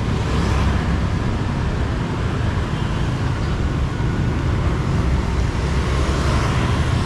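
Steady city street traffic noise from passing vehicles, swelling briefly near the start and again near the end.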